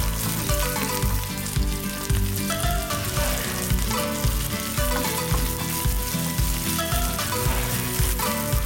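Sliced shallots and curry leaves sizzling in hot oil in a nonstick kadai while they are stirred with a wooden spatula: the tempering being fried. Background music with a steady deep beat, about two a second, plays over it.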